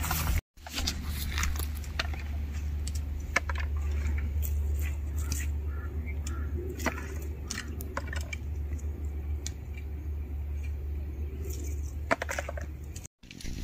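Light clicks, snaps and rustles of chilli plants being handled and chillies picked by hand into a small woven basket, over a steady low rumble.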